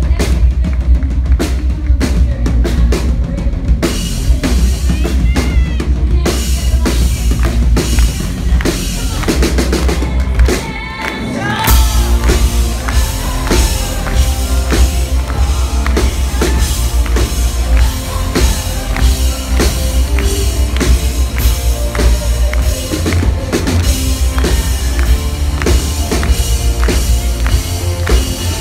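A live pop-rock band playing: a drum kit with heavy bass, electric guitar and a woman singing. The band thins out for a moment about eleven seconds in, then comes back in full.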